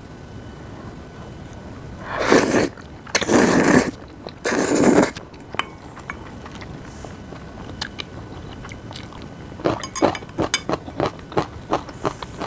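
Close-miked eating: three loud slurps about a second apart, then from near the end rapid, crisp crunching, several bites a second, of fresh spring-cabbage kimchi (bomdong geotjeori).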